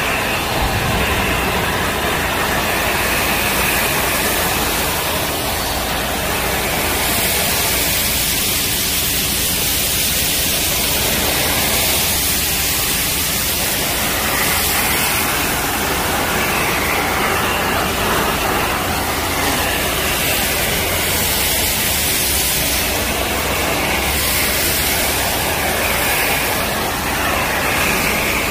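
Industrial shot-ball collection vacuum running steadily with a loud hissing noise as it sucks spilled steel shot off a concrete floor through a squeegee floor nozzle.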